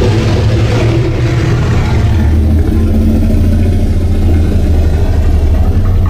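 Monster-movie sound effect: a loud, steady low rumble that cuts in abruptly and holds without changing pitch.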